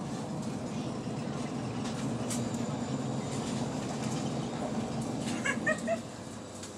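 Cabin noise inside a Frecciarossa high-speed train running at speed: a steady low rumble with a hiss above it. About five and a half seconds in comes a brief cluster of short high-pitched chirps, and then the rumble eases a little.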